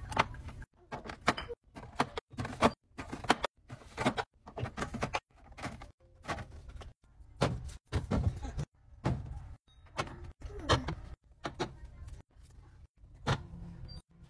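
Plastic snack cups and drink bottles clacking, sliding and thudding as they are set into clear plastic refrigerator bins and onto fridge shelves. The sound comes in many short bursts of handling noise, each cut off suddenly.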